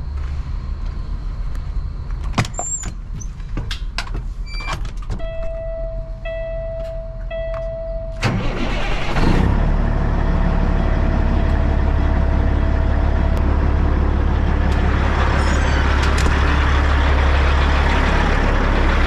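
Three warning beeps from a heavy truck's dash, then the Cat C-15 diesel in a Peterbilt 379 cranks briefly and fires about eight seconds in, settling into a steady idle. It now starts after a rub-through ECM ground was fixed and a corroded engine ECM fuse was replaced.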